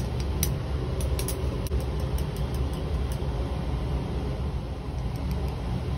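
Steady low ventilation rumble, with faint, scattered light clicks of a glass stirring rod against a glass test tube.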